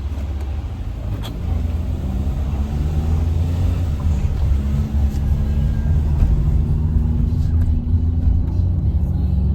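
A motor vehicle running: a steady low rumble with a faint engine hum above it.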